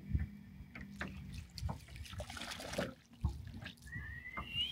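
Water lapping and splashing around a small boat, with scattered small knocks, a brief louder rush of splashing about two seconds in, and a short rising whistle near the end.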